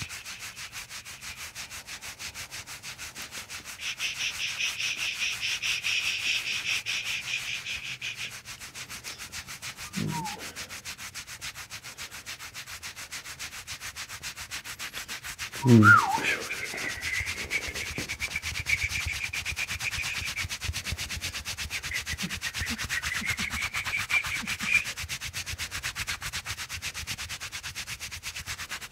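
Hands massaging a person's bare back close to the microphone: quick, even rubbing strokes of palms over skin. Two short sounds that glide in pitch break in, the louder about halfway through.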